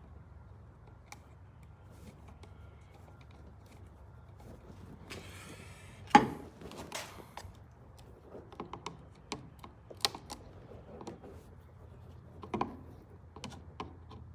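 Scattered clicks and taps of small hardware being handled, from work on fitting a wall outlet into its electrical box, with a brief rustle about five seconds in and one louder knock just after it.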